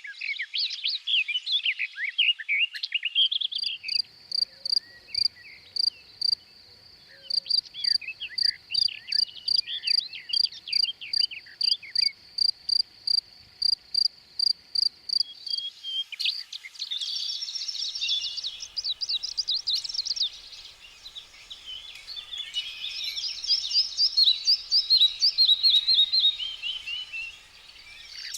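Songbirds singing in quick trills and whistles. From about four seconds in, a short high note repeats steadily about three times a second for some ten seconds, then a denser chorus of birdsong takes over.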